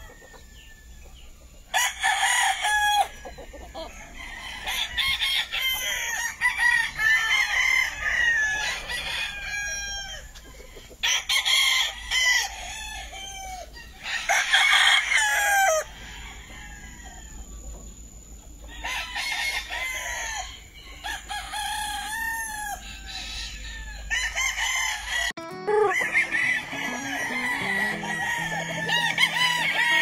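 Several gamecock roosters crowing again and again, their calls overlapping in repeated loud spells.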